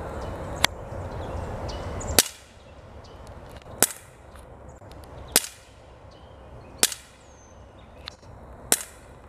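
CO2-powered BB pistol firing copper BBs: six sharp shots, one every second and a half or so.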